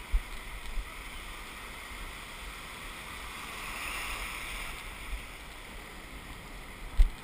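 Shore-break surf hissing around a kayak's bow, swelling about four seconds in as a broken wave's whitewater washes past. Short low thumps come now and then, the loudest near the end.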